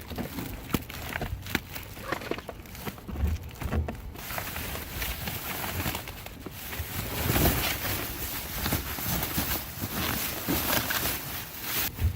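Rummaging through trash in a dumpster: rustling of bags and boxes with scattered knocks and a few dull thumps as items are shifted and pulled out.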